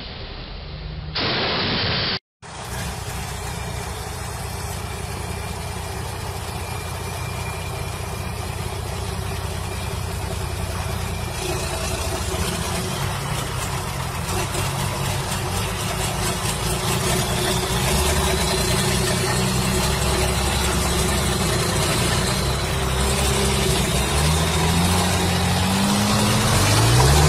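A vehicle engine running steadily, growing slowly louder, with its pitch rising as it revs up near the end. A short burst of hiss and a brief dropout come about two seconds in, before the engine sound begins.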